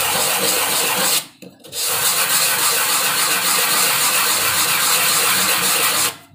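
A small block of angsana (red sono kembang) wood rubbed by hand in circles on a sheet of sandpaper: a steady sanding rasp that pauses briefly about a second in and stops just before the end.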